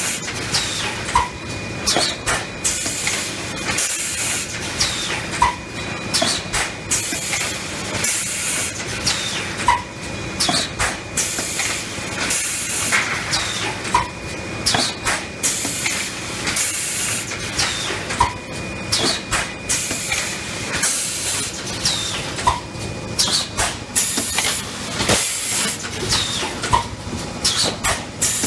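Juneng automatic PET bottle blow moulding machine running: sharp bursts of compressed-air hiss repeat about every second over a steady mechanical clatter. A short clank and chirp comes back about every four seconds, in time with the machine's moulding cycle.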